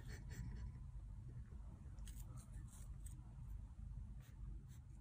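Faint, scattered light clicks and scrapes from a kitten pawing and biting at a small blue plastic object, with a cluster of clicks about two seconds in, over a low steady hum.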